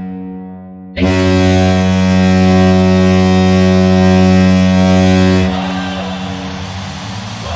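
San Jose Sharks goal horn: a deep, steady air-horn blast that starts sharply about a second in and holds one pitch for about four and a half seconds, then fades out.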